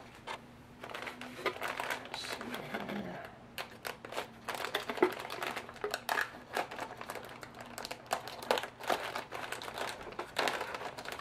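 Plastic packaging bag crinkling and rustling as it is slit open with a hobby knife, with many irregular sharp clicks and scratches.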